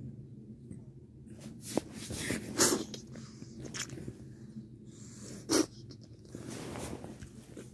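Close handling noise: a series of short rustles and bumps of fabric and movement against the phone, loudest about two and a half seconds in and again just after five and a half seconds, over a low steady hum.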